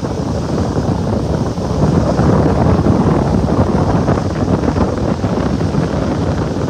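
Wind buffeting the microphone on a moving boat, a steady loud rush with the boat running and water beneath it.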